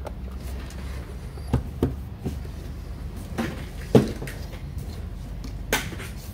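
A few separate light knocks and clicks of hard plastic being handled, as the SSD and the Orico HDD docking station are set up for cloning; the loudest knock comes about four seconds in.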